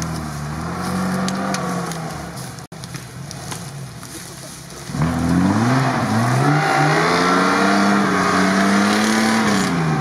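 Jeep Wrangler TJ's 4.0-litre straight-six petrol engine revving up and down as it works through mud, its pitch rising and falling repeatedly. It gets louder from about five seconds in, as the Jeep comes closer.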